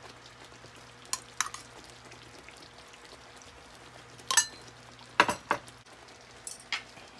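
Ghee melting with a faint sizzle in a hot stainless-steel frying pan. Several sharp clicks and pops break in, the loudest about four and five seconds in.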